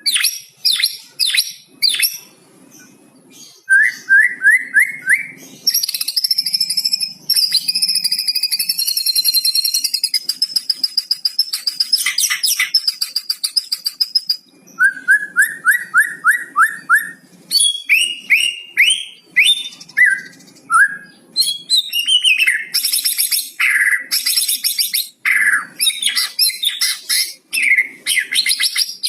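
A white-rumped shama (murai batu) singing a long, varied song full of learned phrases from a cucak cungkok: runs of quick rising chip notes, a long high trilled warble, rapid clicking rattles and whistled phrases.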